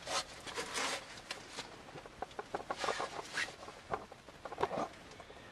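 A camera hanging on a string brushing and scraping against leaves and rock on a well shaft's wall: irregular rustling and scraping with scattered knocks, the sharpest a little before the end.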